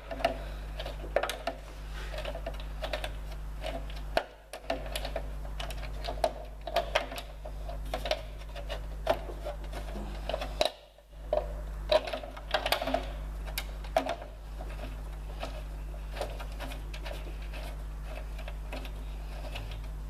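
Irregular small clicks and taps of metal hardware and tools being handled as a bolt is fitted through a spacer, over a steady low hum. The clicks stop about fourteen seconds in.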